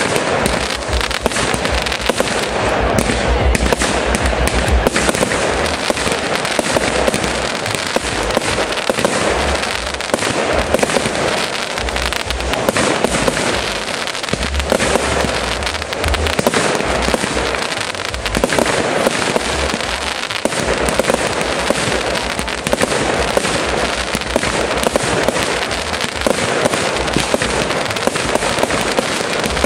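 Fireworks display: a dense, unbroken barrage of shells launching and bursting, rapid bangs mixed with crackling.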